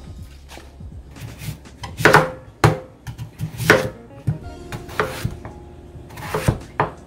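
Kitchen knife chopping napa cabbage and then slicing through a thick round of Korean radish, the blade knocking down onto the cutting board in several irregular chops, the loudest around two and four seconds in.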